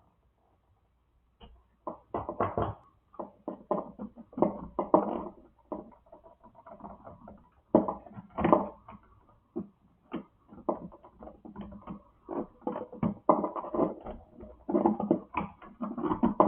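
Irregular rustling, scraping and clicking of hands working wires into three-way push-in connectors in a light-switch box. The sounds come in uneven clusters after a quiet first second or so.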